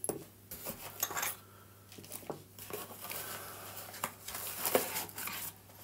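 Handling noise: a bagged brushless outrunner motor's plastic packaging rustling, with scattered clicks and clinks of small metal prop-adapter parts being picked up and put down, the sharpest clink near the end.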